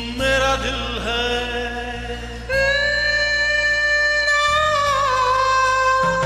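Bollywood film-song music: the opening of a karaoke backing track, a melody of long held, wavering notes over a steady low drone.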